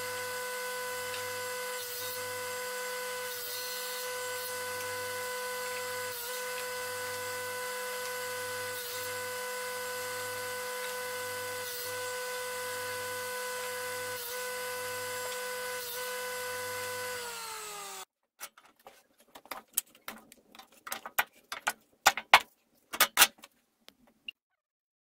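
Table saw running steadily with a constant whine, its pitch starting to drop just before the sound cuts off about two-thirds of the way through. This is followed by a scatter of sharp knocks and clicks.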